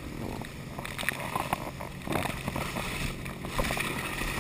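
Water rushing and spraying off a slalom water ski under tow, with scattered splashes and crackles of spray hitting the camera. Near the end the water sloshes right over the lens as the skier settles down into the water.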